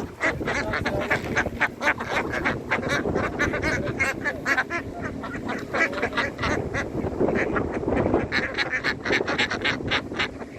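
A flock of ducks quacking in a dense, unbroken chorus, many calls overlapping.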